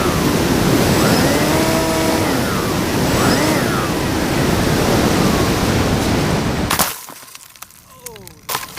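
Small brushless outrunner motor (2200kv) spinning a 6x4 propeller on an RC flying wing, its whine rising and falling in pitch over heavy wind rush. The sound drops away abruptly about seven seconds in, leaving a faint whine.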